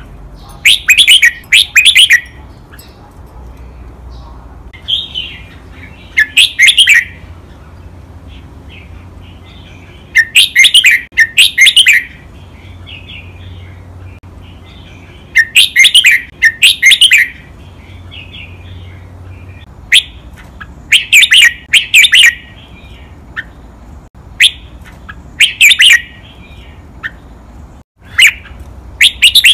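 Red-whiskered bulbul singing loud, clear song phrases every few seconds, many given as quick doubled phrases.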